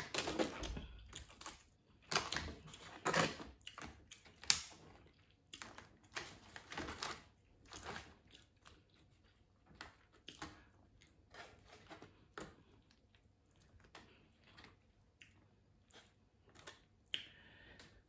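Close-mic eating sounds of a snow crab and shrimp boil: chewing and picking through the seafood by hand, heard as irregular wet, crackly clicks. They are sharpest in the first few seconds and softer and sparser after.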